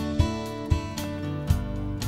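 Background music: a strummed acoustic guitar with a steady beat.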